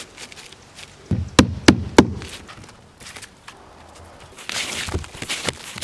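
A hammer driving a roofing nail through an asphalt starter-strip shingle into the roof deck: a quick run of sharp strikes about a second in, three of them loudest about a third of a second apart. Near the end comes rustling and scraping as the shingle is handled.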